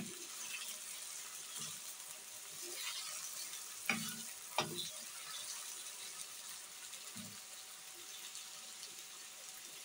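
Sliced potatoes sizzling in hot oil in a frying pan as they are stirred with a wooden spoon, a steady faint hiss. Two sharp knocks about four seconds in, and a soft thump a few seconds later.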